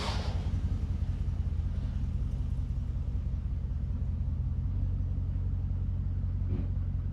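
Holden VY SS Commodore's V8 engine idling steadily with an even low rumble.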